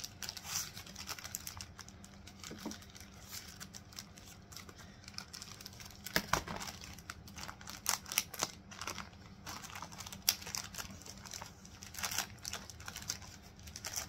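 Clear plastic packaging bag crinkling and crackling in irregular bursts as it is handled and turned over around a boxed microwave flower press.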